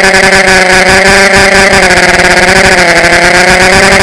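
Electric motors and propellers of a small radio-controlled aircraft, heard loud through its onboard camera's microphone: a steady buzz of several pitched tones with wind rush, the pitch dipping briefly about three seconds in and coming back up.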